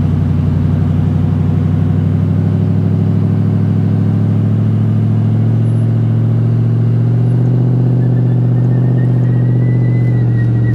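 A 4WD's engine running hard at steady revs under heavy load, pulling against a recovery strap on sand. The revs climb a little about two-thirds of the way in, and a faint thin whine joins the engine.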